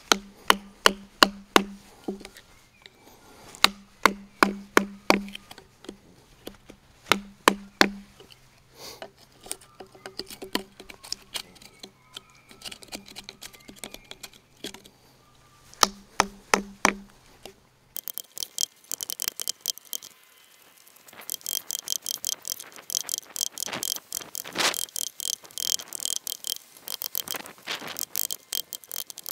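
A chisel being struck to chop a mortise in a timber post: groups of sharp knocks, about three or four a second, with short pauses between groups. About halfway through the knocking stops and gives way to dense rapid scraping and crackling as the chisel pares and levers chips out of the mortise, with a faint steady high whine behind it.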